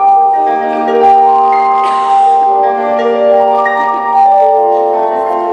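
Live band music: held notes overlapping in chords that change every second or so, with a brief noisy wash about two seconds in.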